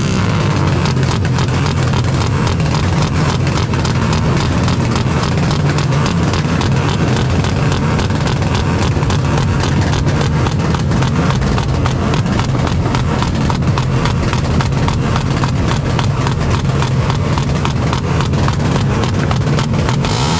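A tuned engine revved hard and held high, with a fast, continuous crackle of exhaust pops over a steady low drone.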